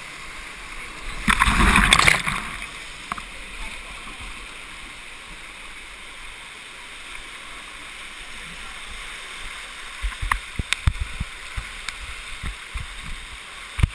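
Canyon stream water rushing over rock close to the microphone, with a loud surge of splashing water about a second and a half in. Several short thumps come near the end.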